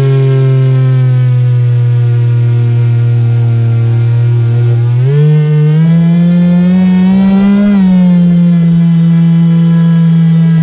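Electric motor of a radio-controlled model boat whining steadily at cruise, heard from on board. About halfway through its pitch climbs as the boat speeds up, then eases back a little and holds.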